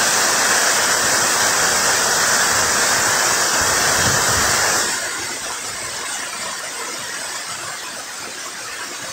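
Rushing water of a small rain-swollen waterfall pouring over rocks into a river pool, a steady hiss that drops noticeably in level about five seconds in.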